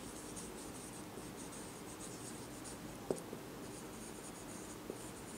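Marker pen writing on a whiteboard: a run of short, high, scratchy strokes of the felt tip. A single sharp knock about three seconds in.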